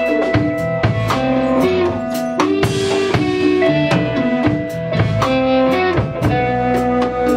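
Live band music: electric guitar playing a melody of held notes over a drum kit keeping a steady beat with frequent cymbal strokes.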